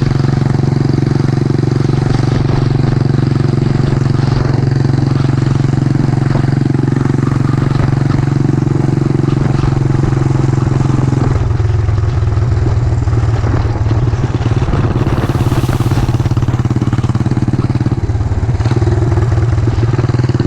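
Yamaha SR400's single-cylinder four-stroke engine running steadily. Its sound thins out about halfway through and fills back in near the end.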